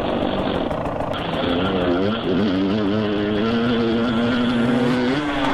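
Dirt bike engine under way on a trail ride, its pitch rising and falling with the throttle, then holding steady for about three seconds before lifting again near the end.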